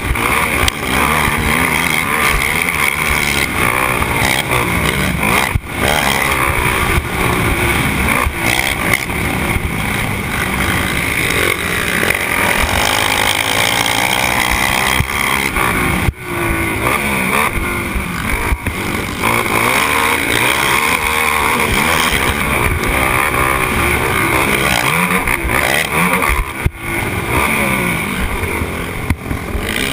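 Onboard sound of a racing sport quad (ATV) engine running hard on a dirt motocross track, the revs rising and falling with the throttle. There are a few brief dips where the throttle is chopped.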